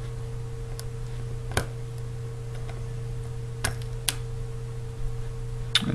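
A handful of small, sharp clicks as a plastic spudging tool works at an iPhone 4S's battery connector and the surrounding metal brackets, over a steady low hum.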